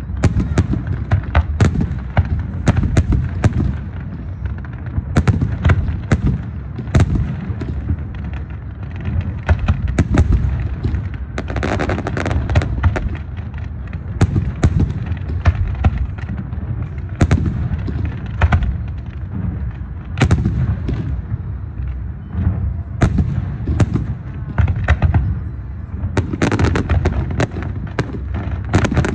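Aerial fireworks display: a rapid, continuous string of booming shell bursts and sharp reports over a constant low rumble. Stretches of crackle come about twelve seconds in and again near the end.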